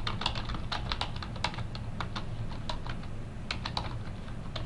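Typing on a computer keyboard: irregular quick key clicks, with a short pause about three seconds in, over a steady low hum.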